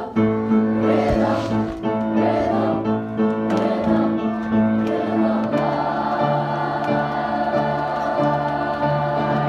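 A choir singing a slow hymn-like piece in long held chords; about halfway through, a lower part comes in and the harmony shifts.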